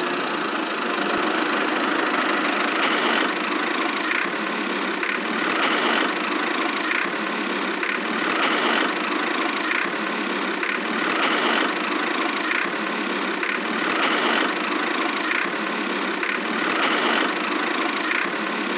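A small motor running steadily, with a rhythmic swell about every second and a half.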